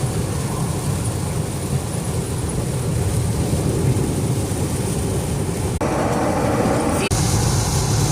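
Truck engine running with a steady low rumble. Two short breaks in the sound, about six and seven seconds in, with a brighter, more hissing stretch between them.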